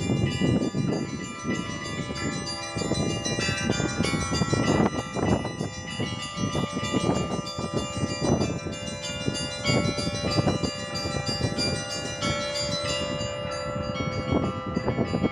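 Russian church bells ringing (kolokolny zvon): many bells struck in quick, irregular strokes over the long, sustained ringing of the larger bells.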